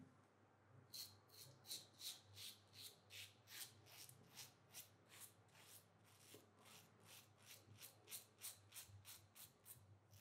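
Mercur Progress 500 adjustable safety razor with a Mercur Platinum blade cutting stubble through shaving lather: a faint, quick series of short scratchy strokes, about two or three a second, starting about a second in.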